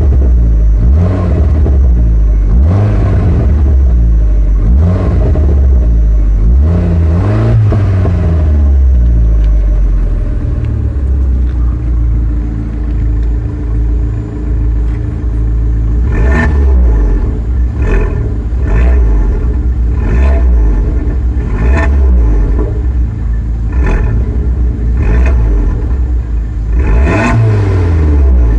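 Car exhausts of an Alfa Romeo MiTo on an Inoxcar aftermarket exhaust and a stock Abarth 500 being revved while stationary. There are several rising-and-falling rev sweeps in the first ten seconds, a steadier idle around the middle, then a run of shorter, sharper blips with crackles near the end.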